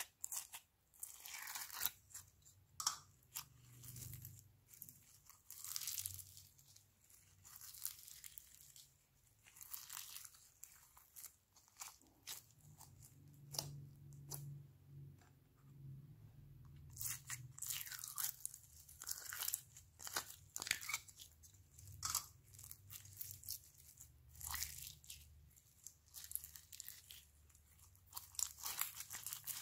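Foam slime full of tiny foam beads being pressed, kneaded and stretched by hand, giving irregular crunchy crackles and squishes in bursts with short lulls between.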